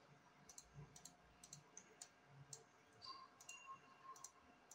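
Near silence with faint, scattered clicks from a computer mouse and keyboard.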